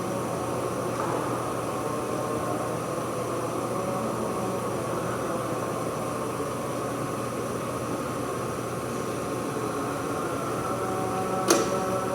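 A machine running steadily, a hum with several steady tones, and a single sharp metallic clank with a brief ring near the end.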